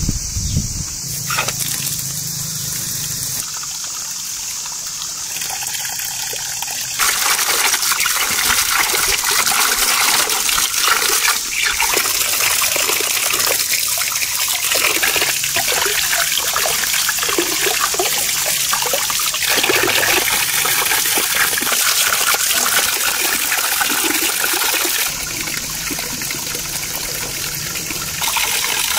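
Water pouring from a tap into a tiled basin as green beans and tomatoes are rinsed by hand, a steady splashing rush that starts about a quarter of the way in and eases briefly near the end.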